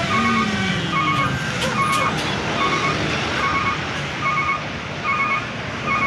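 A bus's basuri 'telolet' musical horn sounding a string of short high beeps, repeating roughly every two-thirds of a second, over the steady noise of bus engines and traffic passing.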